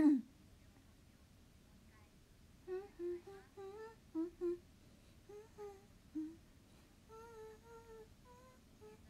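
A woman humming a tune in short, separate notes, starting a little over two seconds in.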